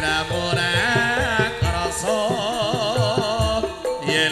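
Javanese gamelan music with a singer holding wavering, vibrato notes over regular low drum strokes.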